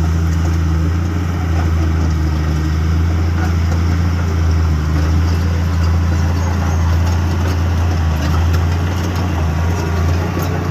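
Komatsu D31 bulldozer's diesel engine running at a steady low hum, on test after its transmission was refitted.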